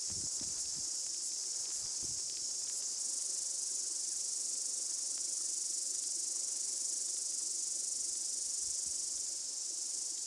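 Continuous high-pitched insect chorus, a steady shrill hiss from many insects calling at once, with a few faint low knocks in the first couple of seconds.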